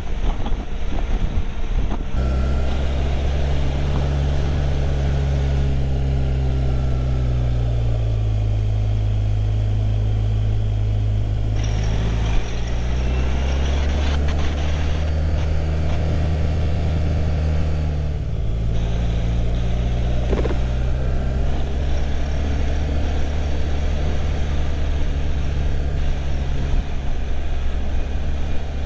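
Motorcycle engine running steadily at road speed with a haze of wind and road noise. Its pitch sinks about a quarter of the way in, climbs again near the middle, and shifts once more a little past halfway as the speed changes.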